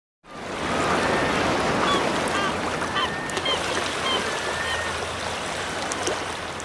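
Outdoor ambience fading in: a steady wash of water noise with birds calling in short chirps over it.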